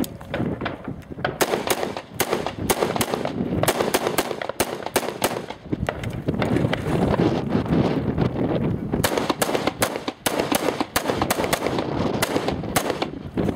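AR-15 rifle in 5.56 fired in quick strings of shots, with a pause of a few seconds in the middle and the densest run of shots near the end.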